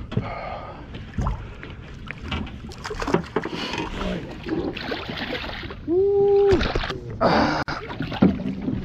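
A hooked striped bass splashing and thrashing at the surface beside the boat as it is brought in and grabbed, with scattered knocks and clicks of handling. A short steady tone sounds about two-thirds of the way through.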